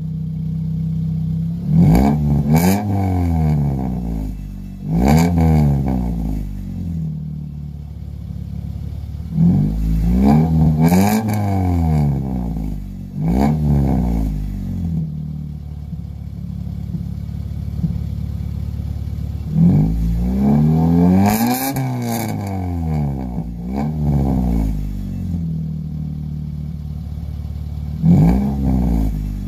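Straight-piped Honda Accord LX exhaust on eBay headers idling and revved in place, over and over. Each rev is a quick blip that climbs and falls back to idle, often two close together, with stretches of steady idle between.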